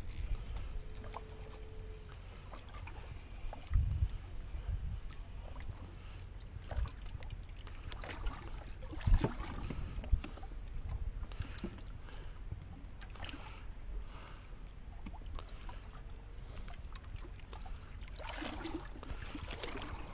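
Ambience aboard a small fishing boat: a steady low rumble with scattered knocks and thumps, the loudest about four and nine seconds in.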